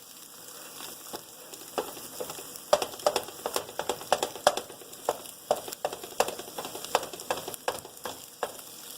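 Scrambled eggs frying in olive oil in a pan: a steady sizzle with irregular sharp pops and crackles, more frequent from about two seconds in.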